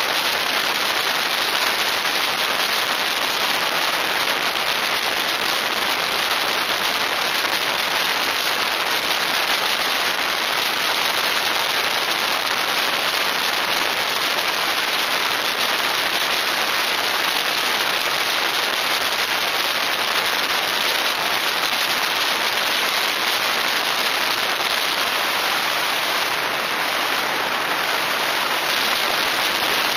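Steady rushing wind and road noise of a motorcycle ridden at highway speed, an even hiss with no engine note standing out.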